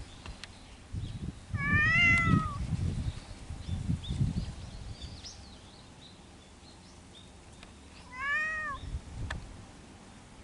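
Cat meowing twice, each meow a drawn-out call that rises and then falls in pitch. The first call is about two seconds in and the second near the end.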